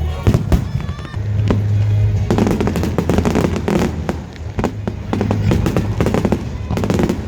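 Fireworks going off: many sharp bangs and crackles, coming thicker from about two seconds in, with music playing underneath.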